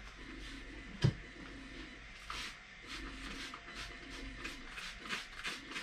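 Hand trigger spray bottle squirting liquid rigidizer into the ceramic-wool lining of a forge: a run of short hissing squirts, about three a second. A single sharp click comes about a second in.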